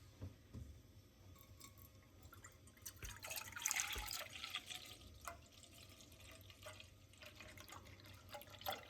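Milk being poured from a bottle into a pan: a faint splashing pour, loudest around three to five seconds in, breaking into dribbles and drips as the bottle runs empty.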